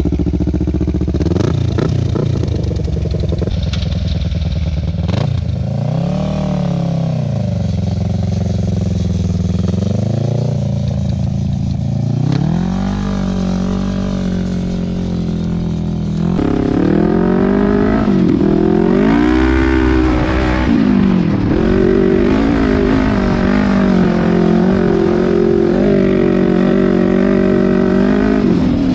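The Kawasaki Ninja 650 parallel-twin motorcycle engine of a home-built off-road kart, revving up and down as the kart pulls away and drives across rough ground. From about halfway it runs louder, its pitch rising and falling again and again under the throttle.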